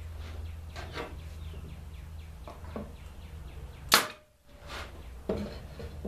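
Pneumatic nailer fired once into pine: one sharp crack about four seconds in, after a few light knocks of the wood and tool being handled.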